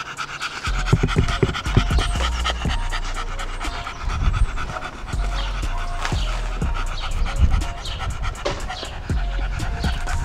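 French bulldog panting fast and hard, with music playing in the background.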